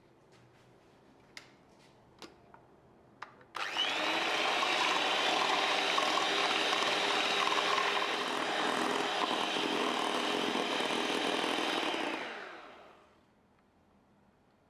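A few light clicks, then an electric hand mixer switches on suddenly about three and a half seconds in. It runs steadily with its beaters whipping mascarpone and cream in a glass bowl, then winds down and stops about two seconds before the end.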